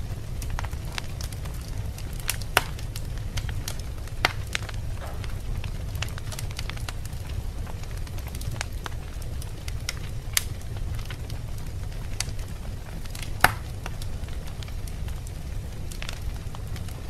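Wood fire burning in a fireplace: a steady low rumble of flames with scattered crackles and sharp pops, the loudest pop about 13 seconds in.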